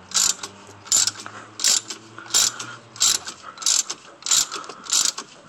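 Ratchet wrench clicking in short, evenly spaced strokes, about one every two-thirds of a second, as it turns the forcing screw of a three-jaw puller. The crankshaft harmonic balancer is nearly drawn off.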